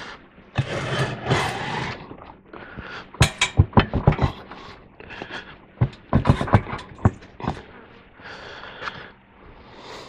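Metal scraping, then two quick runs of sharp metal knocks, as the trailer-wheel band wheel is wrestled back and forth on its rusty mount. The slider it rides on has been jamming with rust.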